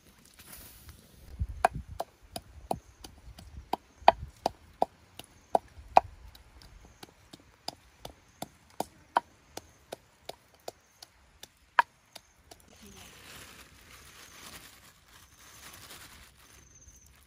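Wooden pestle pounding in an orange clay mortar: sharp knocks, about three a second, which stop about twelve seconds in. After that comes a soft rustling as a wicker basket is handled.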